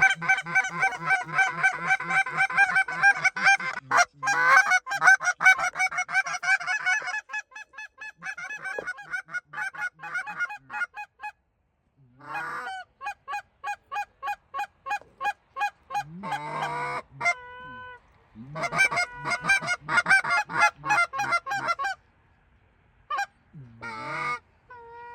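Geese honking in rapid, overlapping calls, dense at first, then in shorter runs broken by brief pauses.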